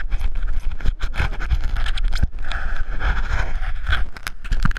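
Clothing and body rubbing and scraping against a GoPro camera at close range as the wearer moves, with many irregular scratches and knocks, over heavy panting breaths.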